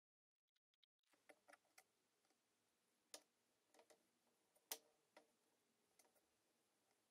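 Near silence: faint room hiss that comes in about a second in, with scattered faint irregular clicks and taps.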